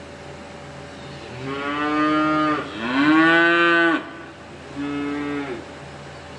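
A cow mooing three times: two long moos back to back, the second the loudest and rising at its start, then a shorter one, over a faint steady hum.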